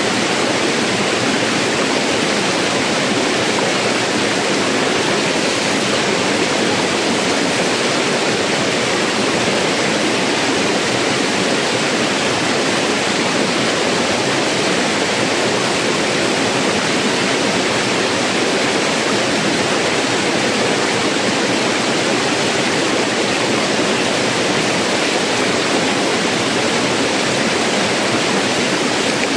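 Stream water rushing over rocks in a small cascade: a steady, loud rush of water.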